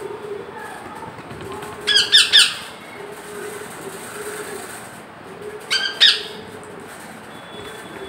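Pet rose-ringed parakeet squawking harshly in two short bursts: three quick calls about two seconds in, and two more about six seconds in.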